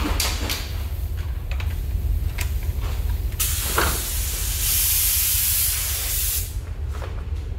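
A paint spray gun hissing with compressed air in one burst of about three seconds, starting near the middle and cutting off suddenly near the end, over a steady low hum.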